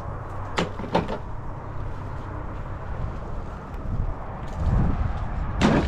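Broken stones knocking together as rubble is gathered by hand: two sharp clacks in the first second and a louder knock near the end, over a low steady rumble.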